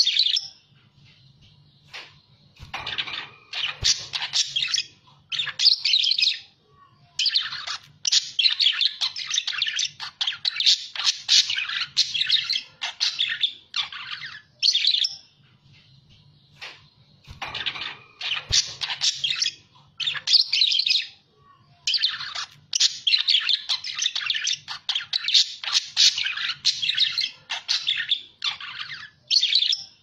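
Budgerigars chattering and warbling in rapid, busy twitters, in long runs broken by short pauses, over a faint low hum. The same stretch of chatter repeats about every fifteen seconds, as in a looped recording.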